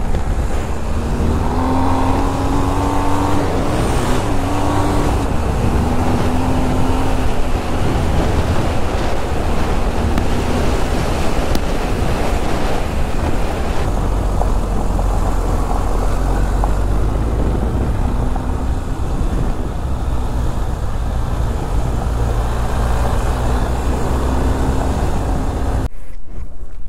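BMW R 1250 GS Adventure's boxer-twin engine running under way, its note rising and falling with the throttle, over wind and tyre noise on a dirt road. The sound cuts off suddenly near the end.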